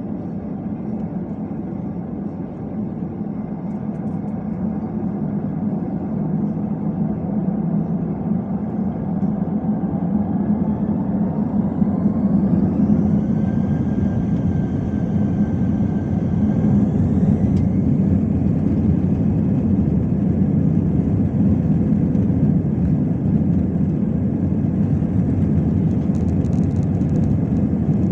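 Airbus A320's CFM56-5B turbofan engines spooling up: a whine that rises in pitch from about ten to seventeen seconds in, over a growing low rumble, then holds steady and loud at high thrust.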